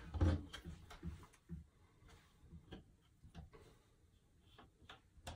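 Paperboard jigsaw puzzle pieces tapping and clicking on a tabletop as hands sort and set them down: irregular light clicks, with a soft thump just after the start.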